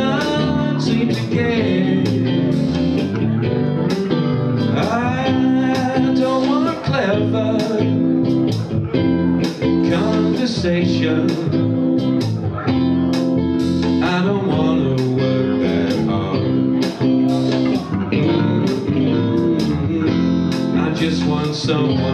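Live band playing a song: a man singing through a microphone over electric guitar and electric bass.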